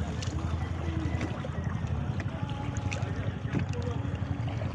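Steady low rumble of wind buffeting the microphone, with a few faint clicks and knocks.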